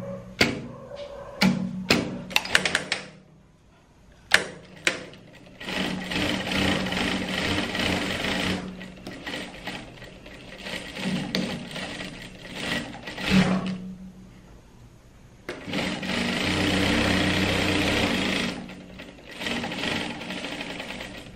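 Industrial straight-stitch sewing machine stitching a seam through layered cotton pillowcase fabric, running in several spells and stopping in between. A few sharp clicks come in the first three seconds, and the machine goes quiet briefly about four seconds in and again about fourteen seconds in.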